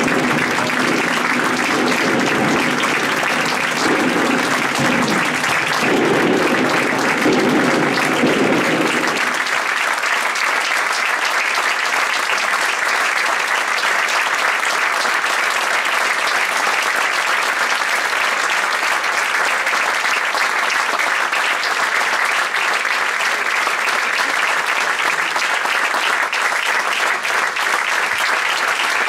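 Theatre audience applauding steadily and continuously. A low sustained tone sounds under the clapping for about the first nine seconds, then stops.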